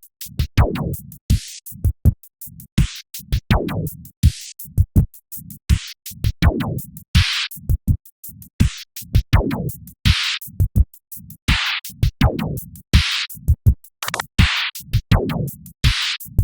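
Synthesized electronic music from MetaSynth: a drum-machine-style beat of short, sharp hits, with a swoop falling from high to low pitch that repeats about every one and a half seconds.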